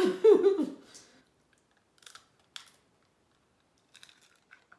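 A short burst of voice right at the start, then faint, scattered clicks and crackles of boiled crawfish shells being peeled and bitten by hand.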